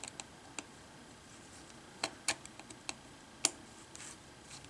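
Scattered faint clicks and ticks of small-parts handling: a screwdriver and a loosened screw against the laptop's plastic and metal screen frame. The sharpest tick comes about three and a half seconds in.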